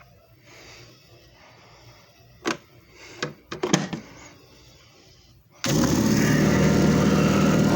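A few light clicks and knocks, then about three quarters of the way through a JFJ Easy Pro disc repair machine's motor switches on suddenly and runs with a loud, steady hum.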